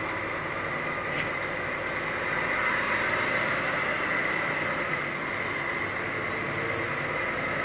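Steady engine and road noise of an articulated lorry heard from inside its cab as it drives slowly, with a steady high whine throughout.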